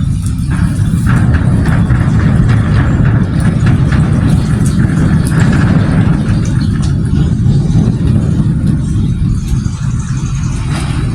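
Steady low rumble of a vehicle engine running, growing louder about a second in.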